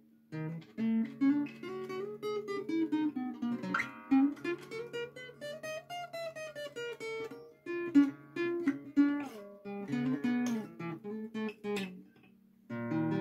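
Acoustic guitar played alone, a blues instrumental break of picked notes and strums, stopping briefly near the end.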